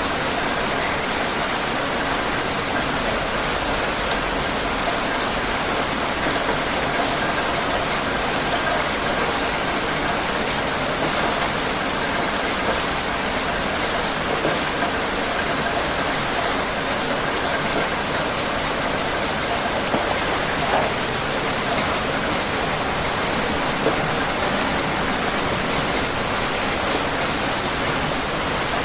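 Heavy rain falling steadily on a surface, an even hiss with scattered drop patters.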